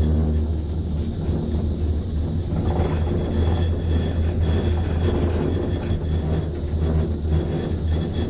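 Steady low rumble and hum inside a gondola lift cabin as it runs along the cable.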